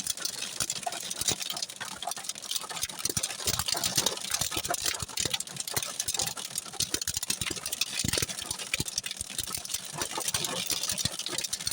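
Hailstorm with heavy rain: hailstones striking hard surfaces in a dense, continuous rattle of countless small impacts over a steady hiss of rain.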